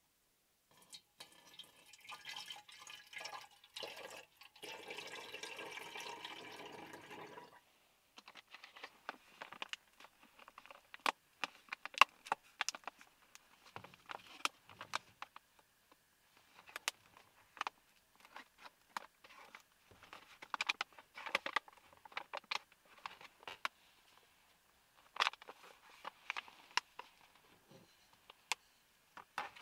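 Liquid poured from a small bottle into a narrow-necked metal bottle, filling steadily for about six seconds before stopping suddenly. Then a long run of sharp crinkles and clicks as a foil-lined coffee pouch is torn open and handled.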